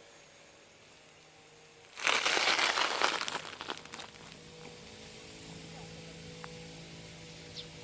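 A loud burst of rustling and crinkling, about two seconds long, starting about two seconds in and then fading.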